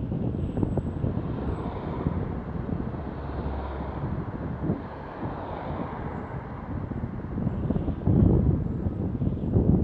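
Wind rumbling on the microphone of a camera on a moving bicycle, mixed with road traffic. It grows louder about eight seconds in.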